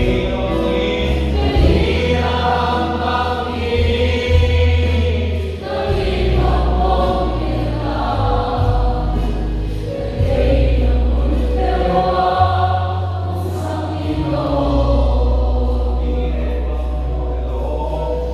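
A choir singing a worship song in several voices, over sustained low bass notes that change every few seconds.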